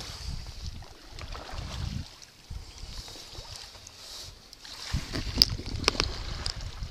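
Paddling a plastic sit-on-top kayak: light water splashes and drips from the paddle, with wind rumbling on the microphone. A few sharp ticks come about five and six seconds in.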